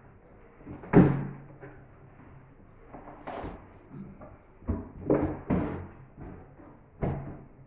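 Books being handled and set down: a run of knocks and thumps, the loudest about a second in, with more at about three, five and seven seconds.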